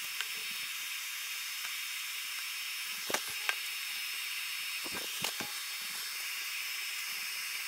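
A steady high hiss with no voice, broken by two pairs of faint clicks, about three seconds in and again about five seconds in.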